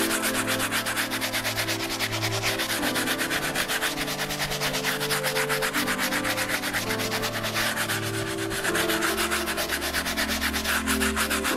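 Plastic-handled bristle brush scrubbing a leather sneaker's upper and rubber midsole through foamy cleaning solution, in rapid back-and-forth strokes, several a second.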